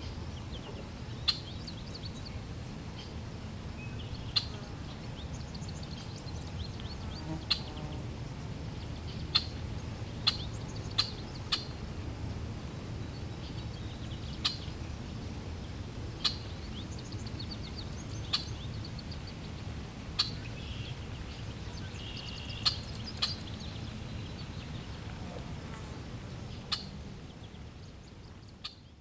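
Birds chirping in short, sharp calls every second or two over a steady low rush of flowing water; the whole sound fades out near the end.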